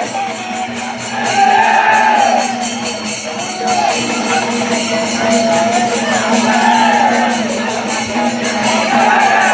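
Music: a fast, even clashing of cymbals or jingles carries on under a melody that bends up and down in pitch.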